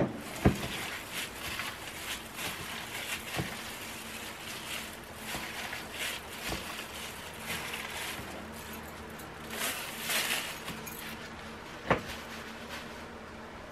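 Plastic-gloved hands squishing and turning raw chicken strips in a wet seasoning in a stainless steel bowl: a wet, rustling crackle, broken by a few sharp knocks against the bowl.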